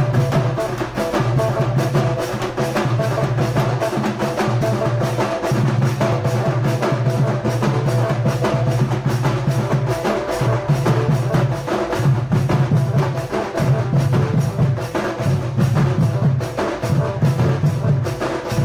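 Loud, drum-heavy dance music with a fast, dense beat that keeps going without a break, played for a circle dance.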